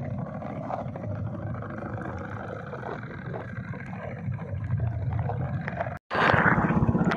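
Muffled underwater rumble of a boat's engine and moving water, heard through the water. About six seconds in there is a brief cut, then a louder rush of water splashing at the surface by the hull.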